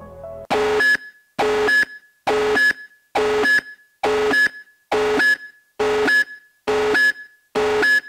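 Emergency-broadcast attention alarm: a loud, chord-like electronic beep repeating a little faster than once a second, starting about half a second in as soft ambient music fades out. It is the signal that heralds a major-emergency announcement.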